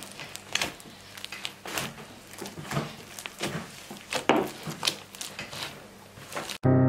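Crunchy foam-bead slime being pressed and squeezed by hand, giving irregular crackling crunches a few times a second. Near the end it cuts off suddenly and piano music starts.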